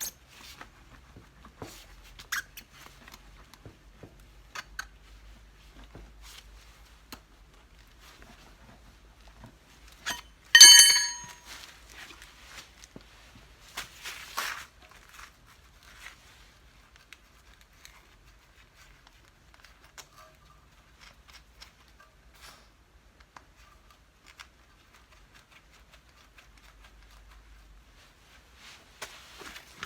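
Hand work on a rear cart's tyre and wheel: scattered small clicks, taps and handling noises, with one short, loud, high ringing sound about ten seconds in and a brief scrape a few seconds later.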